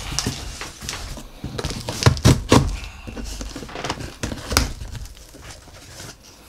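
Cardboard shipping box being opened by hand: flaps pulled apart, with irregular rustling, scraping and knocks of cardboard.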